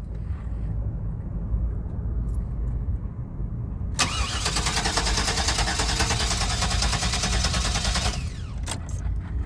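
2000 GMC Savana van's starter cranking the engine for about four seconds, starting abruptly and cutting off without the engine catching: a no-start, put down to a bad fuel pump. A low steady rumble comes before the cranking.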